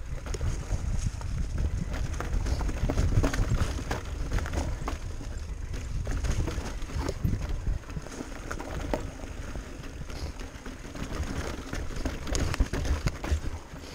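Commencal Meta Power electric mountain bike riding over a rough dirt trail: tyres on dirt and rock, with frequent short rattles and clacks from the bike, over a steady low rumble.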